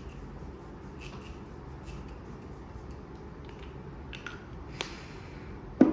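Faint clicks and handling of a Caudalie Beauty Elixir facial mist spray bottle, with a short spritz of mist about five seconds in and a louder knock just after it.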